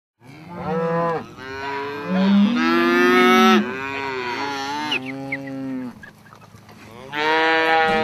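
A herd of cattle mooing: several long, drawn-out moos, some overlapping, one after another, with a short lull about six seconds in before another moo starts near the end.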